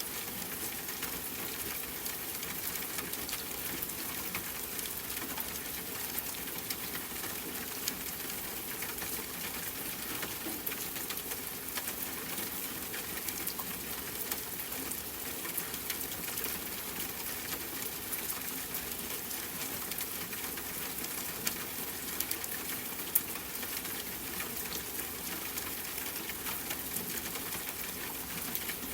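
Steady rain falling, an even hiss with scattered drop ticks and a few louder single drips.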